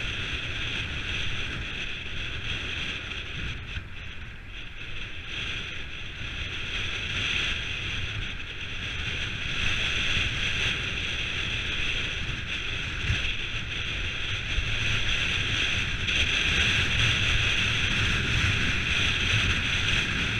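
Steady riding noise from a mountain bike rolling along a dirt track: wind on the handlebar camera's microphone, with the tyres rumbling over the ground. It grows somewhat louder about halfway through.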